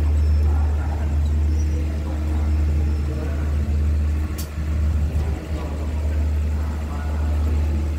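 Diesel engine of a train standing at a station, idling: a steady low drone, with a faint click about four and a half seconds in.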